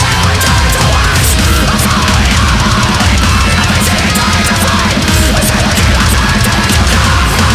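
Death metal with distorted guitars and rapid drumming, loud and dense throughout.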